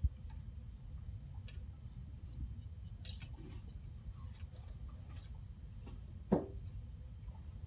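Faint ticks and clinks of fingers tapping a small metal pan to trickle gold onto a beam scale, over a steady low hum. A short, louder sound falling in pitch comes about six seconds in.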